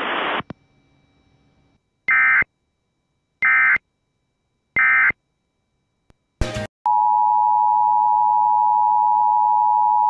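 Emergency Alert System end-of-message data bursts: three short, raspy digital bursts about a second and a half apart. After a brief crackle, the steady two-tone EAS attention signal sounds from about seven seconds in.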